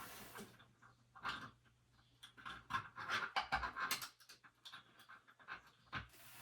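Panting breaths in irregular short bursts, several clustered together about midway.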